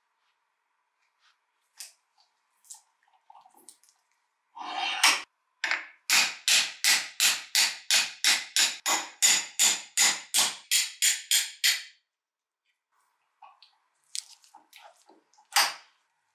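An even run of sharp scraping strokes, about three a second for some six seconds, after a single longer scrape. Light knocks of metal handling come before and after.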